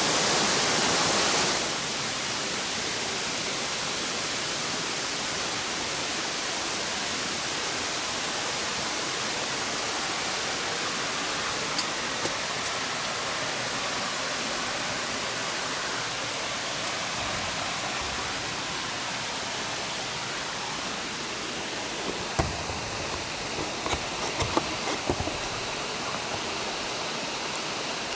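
Waterfall rushing in a steady, even roar of falling water, louder for the first second and a half and then steady. A few short knocks come near the end.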